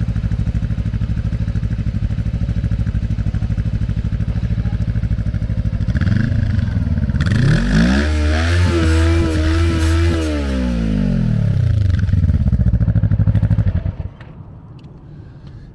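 Cruiser motorcycle engine idling with a pulsing beat. About six seconds in it is revved up, held high for a couple of seconds and let back down to idle, then switched off near the end.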